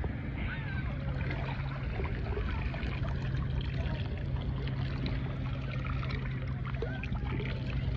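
Water sloshing and swirling around a person wading waist-deep while working a metal sand scoop, with small splashes and a steady low hum underneath.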